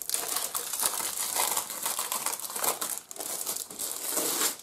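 Clear plastic cellophane wrapper crinkling continuously as a pad of scrapbooking paper is slid out of it, with a short lull about three seconds in.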